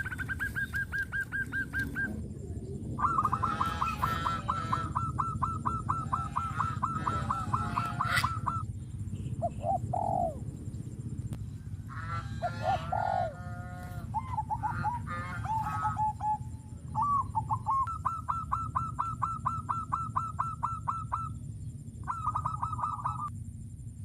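Birds calling in runs of fast, evenly repeated notes at one pitch, each run lasting a few seconds, with shorter calls between them, over a steady low rumble.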